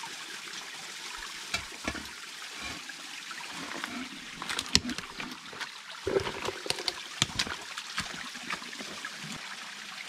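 Small creek trickling steadily over rocks, with scattered knocks and clicks from a bucket and pipe being handled in the creek bed.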